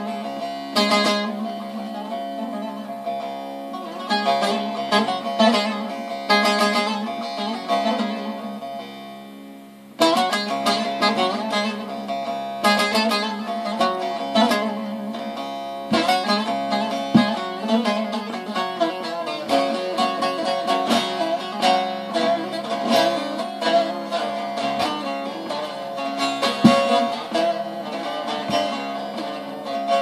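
Bağlama (long-necked Turkish saz) played solo with a plectrum: a quick run of picked and strummed notes with sharp attacks. The playing dies away and starts again with a strong stroke about ten seconds in.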